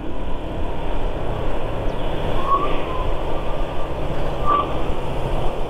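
Motorcycle riding along at steady speed: a continuous engine drone mixed with road and wind rush, with two brief faint tones about two seconds apart.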